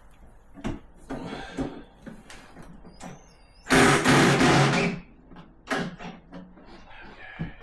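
A power drill runs briefly, driving a screw, in one loud spell of about a second just past the middle. Scattered knocks and clicks of handling parts and screws come before and after it.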